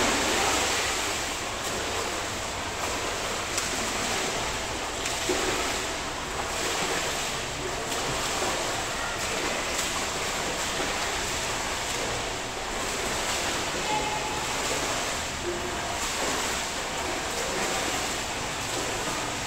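Children swimming butterfly and front crawl in a pool: continuous splashing of arms and kicks against the water, with a rough rhythm of strokes about once a second.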